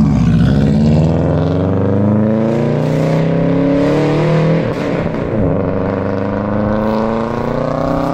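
Subaru WRX's turbocharged EJ205 flat-four engine accelerating hard as the car pulls away. Its pitch climbs steadily, drops about halfway through, then climbs again.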